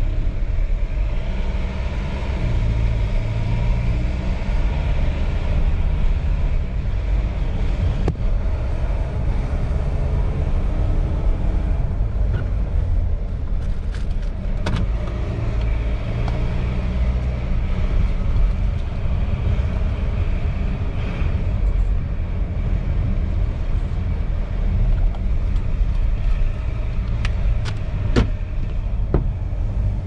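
2018 Volvo XC90 D5's four-cylinder diesel engine and tyres heard from inside the cabin while driving at low speed: a steady low rumble. A few short clicks come about halfway through and again near the end.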